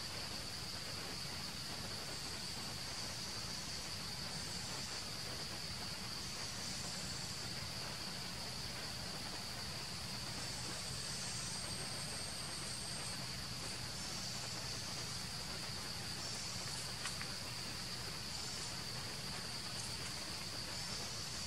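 Steady high-pitched drone of insects, with shorter, higher buzzing bouts coming and going over it, and a faint click about seventeen seconds in.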